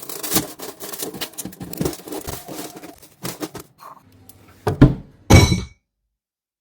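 Rapid clattering and knocking of hard objects, then two loud heavy thuds about five seconds in.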